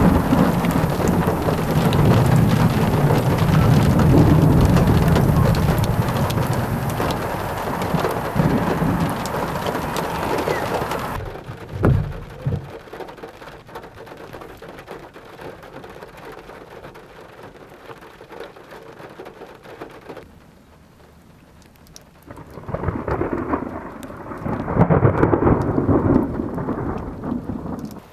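Thunderstorm: steady rain with a long, deep rumble of thunder through the first several seconds. After an abrupt change about eleven seconds in, quieter rain follows with a brief clap of thunder, then another rolling rumble of thunder swells near the end.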